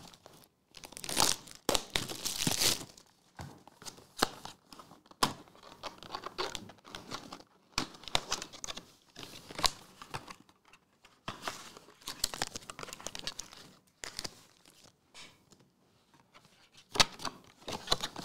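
Plastic shrink wrap being torn and crinkled off a Pokémon card booster box, in irregular crackling bursts with sharp clicks. Near the end the foil booster packs rustle as they are handled and laid on the mat.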